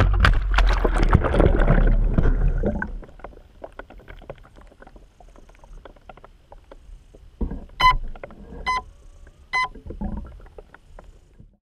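A DJI Phantom quadcopter crashing down a dirt riverbank into a river: rumbling, clattering impacts for the first few seconds, then muffled faint crackling clicks once the camera is underwater. Near the end come three evenly spaced electronic beeps, each a little under a second apart.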